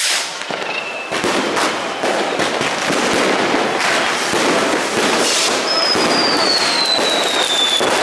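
Many fireworks and firecrackers going off at once in a dense, continuous crackle of bangs. A high whistling firework starts about halfway through the second half and falls slowly in pitch.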